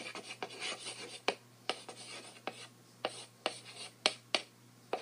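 Chalk writing on a blackboard: scratchy strokes broken by sharp taps about every half second, over a faint steady low hum.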